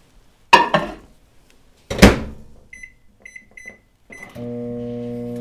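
Microwave oven door knocked shut with two loud thumps, then a few short keypad beeps, then the oven starting up with a steady electrical hum as it heats a sauce.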